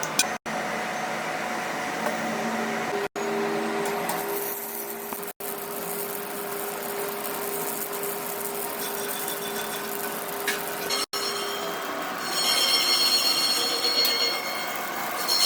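Steady mechanical noise of metalworking in a workshop with a held hum. Near the end it rises into a high metal-on-metal squeal of several tones. The sound drops out abruptly for an instant several times.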